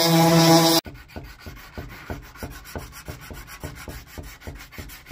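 Electric orbital sander running with a steady hum, cut off abruptly under a second in. Then a hand rubbing back and forth across the bare sanded wooden tabletop in quick, even strokes, about five a second, much quieter than the sander.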